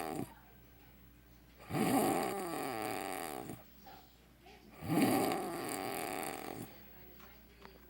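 A man snoring through his open mouth, a deep croaking snore like a bullfrog's. The tail of one snore ends just at the start, then two full snores of about two seconds each come roughly three seconds apart, with quiet breaths between.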